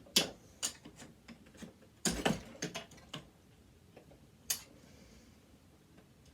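Sharp clicks and knocks from a dismantled sewing machine's parts being wrenched by hand as a plastic part holding the wheel is forced to snap. There is a loud cluster of cracks about two seconds in and a last single sharp crack about four and a half seconds in.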